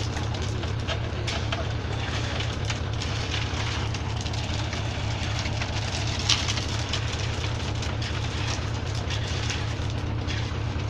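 Hino FS Ranger concrete mixer truck's diesel engine running steadily, with many small clicks over the low engine sound and one sharper knock about six seconds in.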